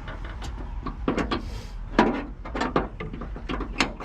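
Irregular clicks and knocks of a wrench and small nuts being worked by hand in a cramped gap behind a car's body panel. The loudest knock comes about two seconds in.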